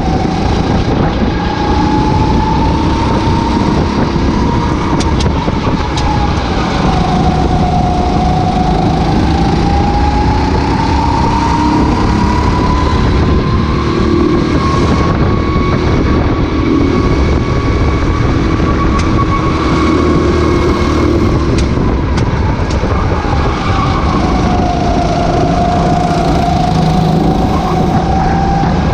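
Racing kart engine at full race pace, its pitch rising as it revs out and dropping back twice when it slows for corners, held longest at the top in the middle of the stretch.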